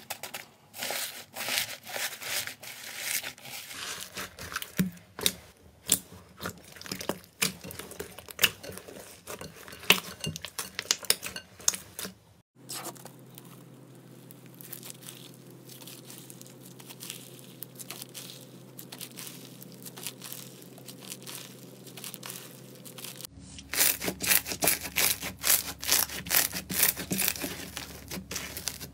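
Hands squishing and poking slime packed with foam beads, making dense, irregular crackling and popping. About halfway through it gives way to a quieter, softer squelch as a bumpy textured slime is stretched, and near the end loud, rapid crackles return as that slime is pressed flat.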